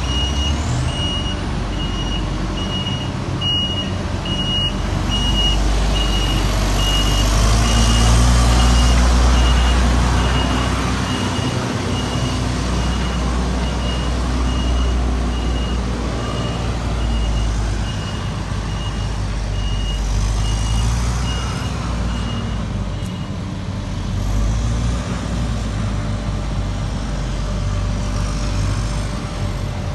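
Heavy diesel construction machinery running, with a reversing alarm beeping steadily about twice a second. The engine gets louder in the first third. The beeping stops about three quarters of the way through and starts again near the end.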